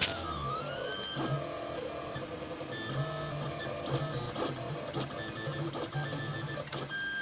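Home-built 3D printer running, its stepper motors whining in short steady tones that jump from pitch to pitch as the axes move, with a swooping glide right at the start.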